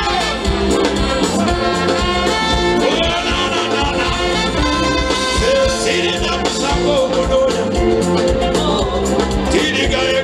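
A band playing music with a lead singer over a steady beat.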